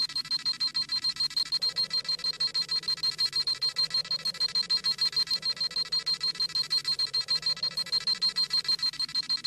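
Dragon Ball Z scouter sound effect: a rapid, even electronic beeping, several high-pitched beeps a second, the sound of the scouter scanning a power level.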